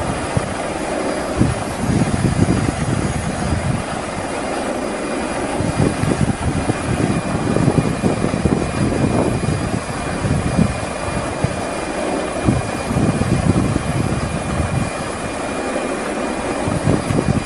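Helicopter noise: a steady engine drone with a faint high whine under heavy, irregular wind buffeting on the microphone.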